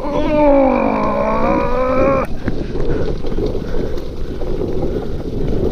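Mountain bike disc brake honking in one long moan, dipping slightly in pitch and cutting off suddenly a little over two seconds in. Then wind on the microphone and the low rumble of tyres rolling over the trail.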